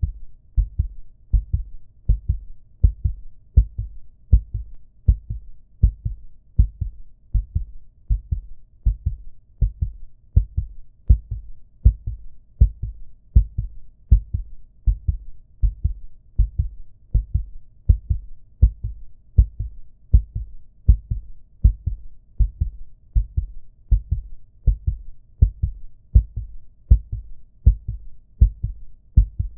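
Recorded heartbeat sound effect: a steady lub-dub rhythm of low, dull thumps, a little over one beat a second, each loud beat followed closely by a softer one.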